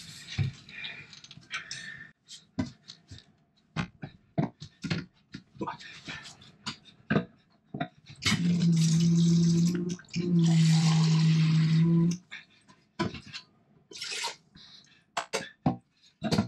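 Clicks and knocks of things being handled, then, about eight seconds in, water running from the camper's sink tap into a stainless steel kettle with the steady hum of a small electric water pump. It runs in two spells of about two seconds with a brief break between.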